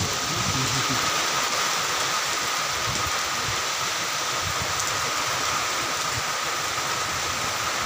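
Steady rain falling, an even hiss of drops on leaves and surfaces.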